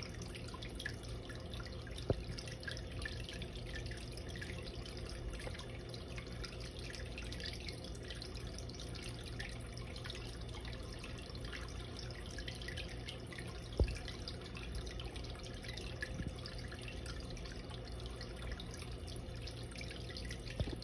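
Water trickling and splashing steadily in a turtle tank, a dense patter of small drips over a low hum, with two sharp clicks about two seconds in and near fourteen seconds.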